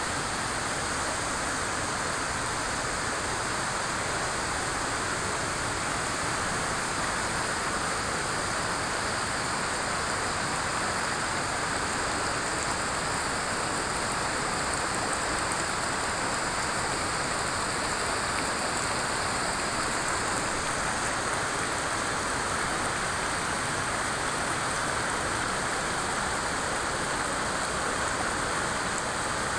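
Steady rushing of a flowing river, an even wash of water noise with no breaks or changes.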